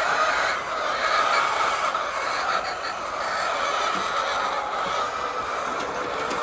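Dense, steady chatter of a large flock of laying hens clucking together in a poultry house.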